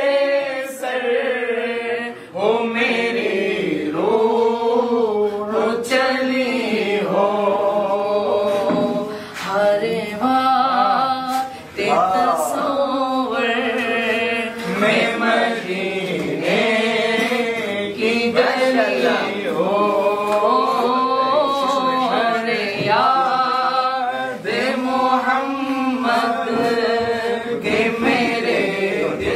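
A man singing an Urdu naat, a devotional song, in a melismatic chanting style, with voices only and no instruments.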